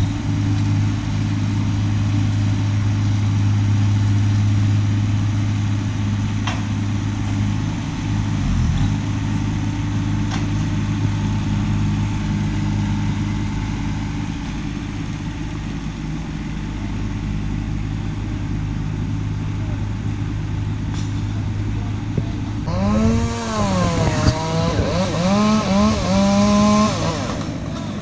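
Chainsaw engine running at a steady low speed, then revved up and down several times near the end.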